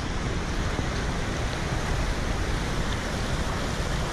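Muddy floodwater rushing in a steady torrent across a road, a dense continuous roar of water.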